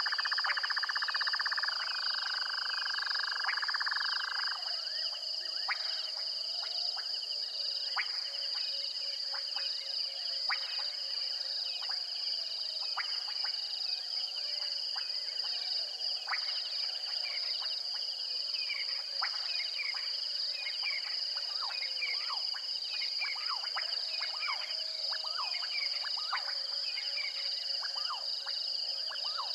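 Night chorus of insects and frogs. A steady high insect trill runs throughout, and a louder buzzing trill stops about four seconds in. After that come many short clicking and chirping frog calls, which grow thicker in the second half.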